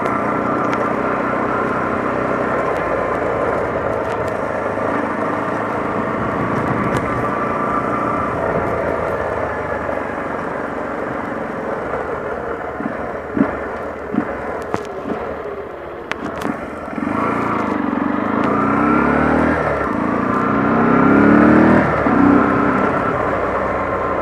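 Honda CG 125 Fan single-cylinder four-stroke engine running as the motorcycle rides along. There are a few knocks about halfway through. Near the end the engine note rises in pitch and grows louder as the bike accelerates.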